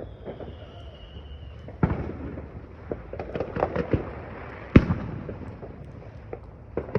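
Fireworks going off: a sharp bang about two seconds in, a quick run of crackling pops a second later, the loudest bang near the middle, and a couple of pops near the end. A faint whistle falls in pitch during the first second and a half.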